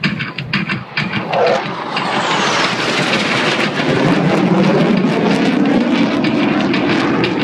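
Two U.S. Air Force Thunderbirds F-16 jets passing low overhead, their jet engine roar swelling about two seconds in and staying loud, with a high whistle falling in pitch as they go by.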